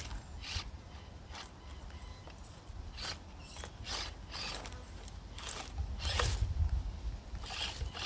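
Axial SCX24 Deadbolt 1/24-scale rock crawler clambering over rock: irregular short scrapes, clicks and crunches from its tyres and chassis against stone, gravel and dry leaves.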